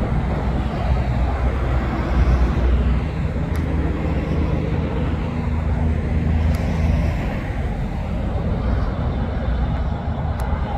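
Heavy truck on a highway: diesel engine hum with tyre and road noise. The engine tone is plainest for the first several seconds, then fades into steady traffic noise.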